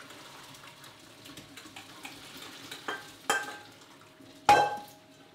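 Cooking water hissing out of a stainless steel saucepan as fresh pasta is drained, with three clanks of the metal pan, the last and loudest near the end, ringing briefly.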